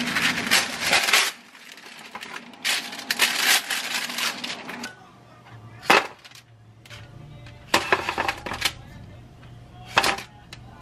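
Parchment paper rustling as it is spread over a plastic tray, then air-fried sweet potato sticks tipped onto it and pushed about with a wooden spoon: short bursts of paper rustle and light clatter, with one sharp tap about six seconds in.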